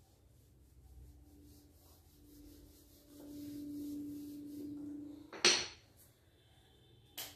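A whiteboard duster rubbing across a whiteboard as writing is erased, with a low steady hum for about two seconds in the middle. About five and a half seconds in comes a loud, sharp clatter, then two shorter knocks near the end.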